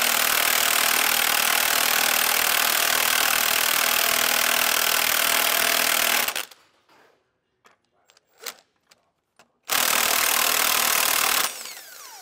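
Cordless impact wrench with a deep socket backing off tight, fine-threaded U-bolt nuts on a truck axle: one long run of about six seconds, a pause with a few metal clinks, then a shorter run whose motor winds down with a falling whine near the end.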